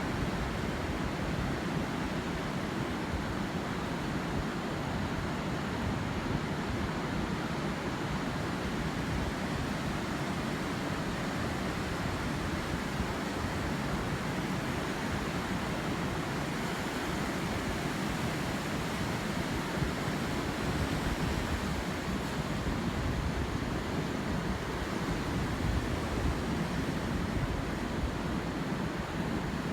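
Atlantic surf washing onto a sandy beach as a steady rush of noise, with wind buffeting the microphone.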